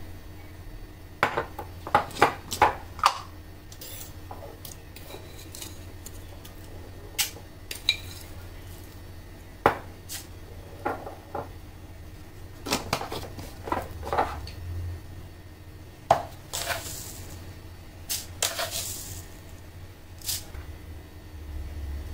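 A spoon clinking and tapping against a plastic cup and a coffee jar as coffee and sugar are spooned in: scattered sharp clicks and knocks, a few brief scraping hisses, over a low steady hum.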